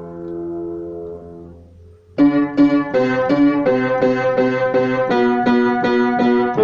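Upright piano: held notes ringing and fading away, then about two seconds in a quick run of struck chords, about three or four a second.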